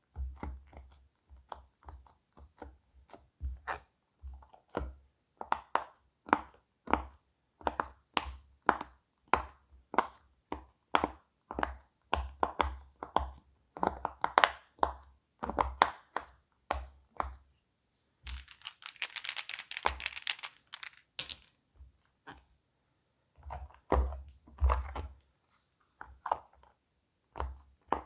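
Silicone pop-it fidget toy bubbles pressed one after another, a steady run of short soft pops and clicks, a few each second. Partway through the popping stops for about three seconds of scratchy rustling, then picks up again.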